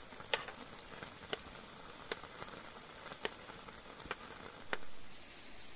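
Steady high-pitched chorus of forest crickets, with six sharp, irregularly spaced clicks over it.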